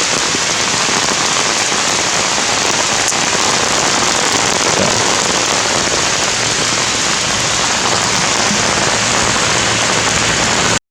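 Heavy rain falling steadily: a dense, even hiss of drops. It cuts out for a moment at the very end.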